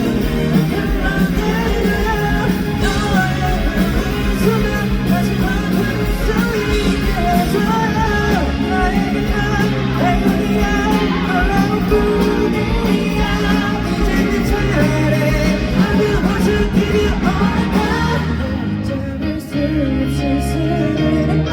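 A live pop-rock band playing a song with singing, drums, guitar and bass, recorded from the audience; the music thins and briefly drops near the end before carrying on.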